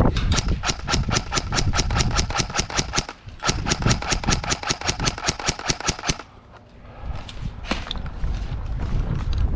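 Airsoft rifle firing on full auto in two long bursts of about three seconds each, a rapid even rattle of about ten shots a second. After the bursts come quieter rustling and a single click.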